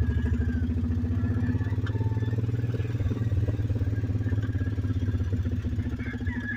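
Small engine of a ride-on vehicle running steadily as it drives slowly over grass, a low pulsing rumble.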